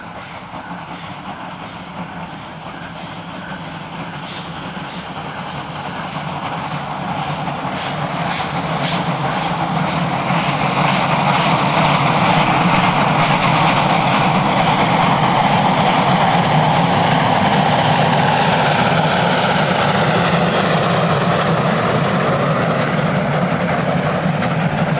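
Steam locomotive hauling a passenger train, working hard with heavy exhaust. It grows louder as it comes near, with a few sharp exhaust beats about eight to eleven seconds in, then the coaches' wheels roll past steadily on the rails.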